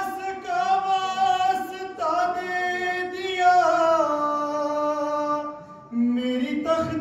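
A man singing an Urdu devotional manqabat without instruments, holding long drawn-out notes that glide from one pitch to the next, with a short break for breath just before a new note near the end.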